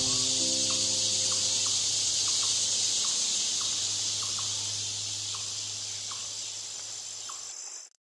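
A steady, high-pitched insect chorus with a few faint short chirps scattered through it. Soft background music lies underneath: its held notes die away in the first two seconds, leaving one low drone. Everything fades slowly and cuts off just before the end.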